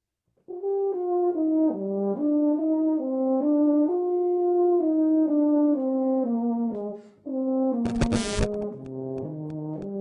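Euphonium playing a slow, legato melodic phrase, one note at a time, with a short break for breath about seven seconds in. A brief burst of noise follows near the end.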